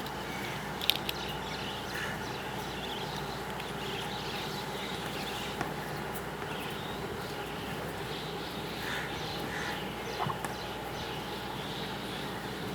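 Farm-shed ambience: small birds chirping over a steady low hum, with a sharp click about a second in and a few light knocks later on.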